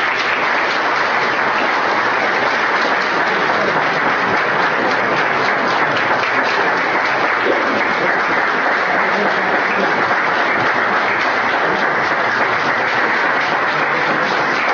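A roomful of people applauding, a dense, steady clatter of clapping hands.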